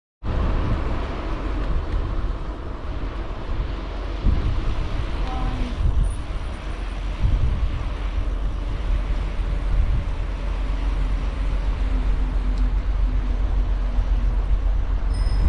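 Steady rush of wind buffeting the microphone along with road traffic noise while riding a bicycle through town.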